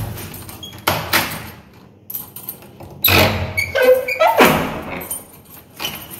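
A wooden door's knob and lock rattled and knocked while someone tries to unlock it with a key, in sharp clattering bursts about a second in and again from about three to four and a half seconds in, with a brief squeak in the second burst.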